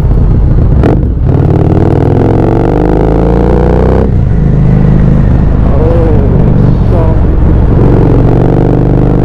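Harley-Davidson Street 750 V-twin with an aftermarket exhaust, heard while riding. The engine note climbs under throttle, drops suddenly about four seconds in, then climbs again near the end.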